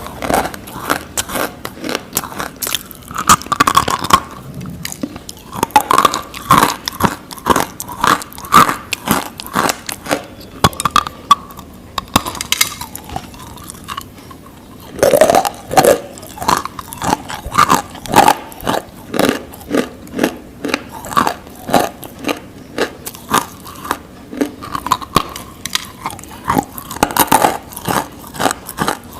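Close-up biting and chewing of hard, crunchy pieces of Nakumatt crunch: a steady run of sharp crunches, about one or two a second, with a few short pauses.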